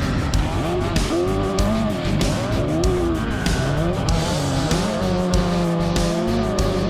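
Cars being driven hard, with a strained tone whose pitch sweeps up and down repeatedly, mixed with music that has a steady drum beat.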